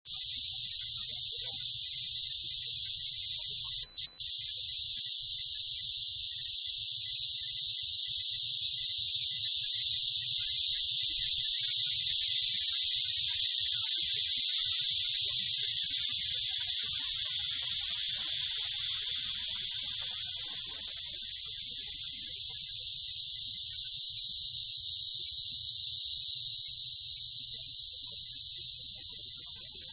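Synthesized tinnitus sound: a steady high-pitched hiss with two thin steady tones inside it. It cuts out twice very briefly about four seconds in and slowly swells and ebbs in loudness.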